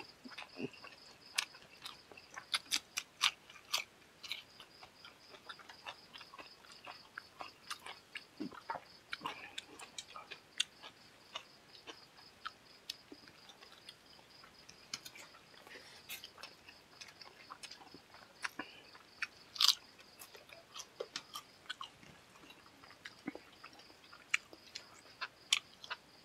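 Close-up eating sounds: a person chewing and smacking through a meal of chicken and fish curry with rice and salad, with sharp, irregular clicks and occasional crunches from bites.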